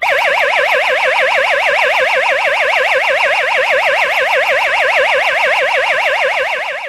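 Electronic siren of a Cazoner combustible-gas and carbon monoxide alarm sounding a loud, fast, even warble, its gas-leak alert. It cuts off abruptly at the end.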